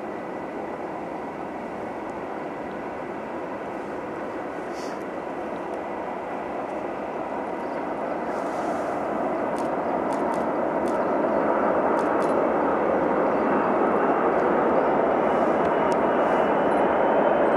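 Airbus A380's four Engine Alliance GP7200 turbofans on final approach, a steady jet rumble with a faint whine that grows steadily louder as the airliner comes nearer.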